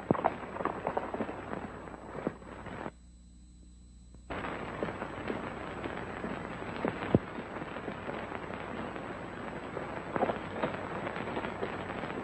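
Crackling surface noise of an old optical film soundtrack, with irregular sharp pops. About three seconds in it drops for a second or so to a low hum, then the crackle returns.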